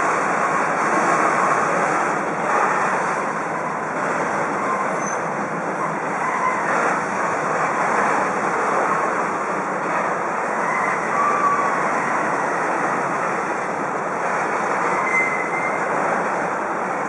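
Wagons of a rolling-road freight train, lorries loaded on low-floor flat wagons, running past: a steady noise of wheels on rail, with a few brief, faint wheel squeals on the curve.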